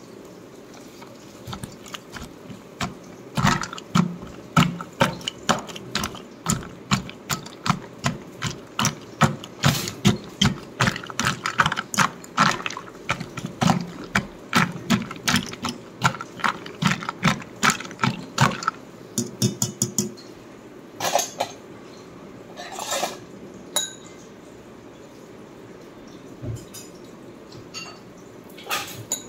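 A kitchen utensil knocking repeatedly against a dish or pot in a quick, regular rhythm of about two to three knocks a second for most of twenty seconds, then a few scattered clinks.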